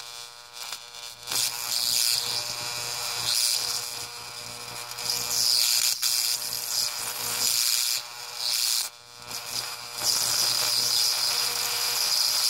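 High-voltage discharge from a 15 kV transformer buzzing and sizzling as streamers crawl over dry concrete powder, over a steady electrical hum. The sizzle drops away briefly twice, about a second in and again around eight to nine seconds in.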